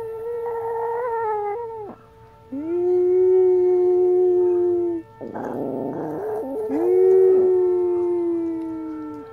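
Old Chihuahua howling at a siren: a first howl that drops off sharply, then two long, steady howls of a couple of seconds each, with a short rough sound between them. The siren's steady tone runs underneath.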